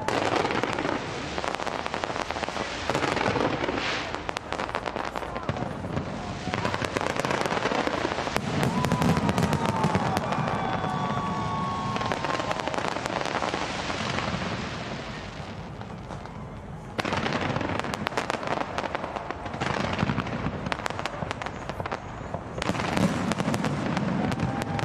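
A fireworks display with aerial shells bursting in rapid succession, a dense run of bangs and crackling. It thins out briefly about two-thirds of the way through, then picks up again suddenly.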